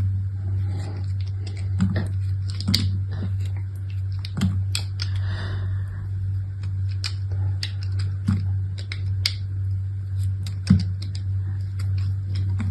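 Soap packaging being unwrapped by hand: irregular clicks, crinkles and taps, with a brief rustle about five seconds in, over a steady low hum.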